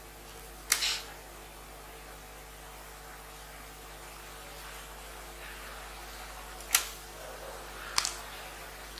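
Three short, sharp clicks spaced several seconds apart, over a steady electrical hum of room noise.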